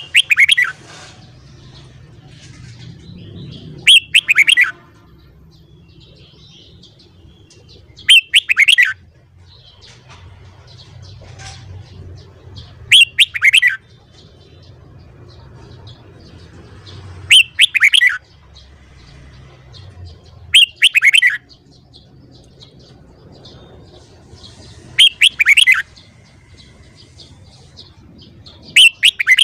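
Red-whiskered bulbul singing: a short, loud phrase of quick falling notes, repeated about every four seconds, eight times in all.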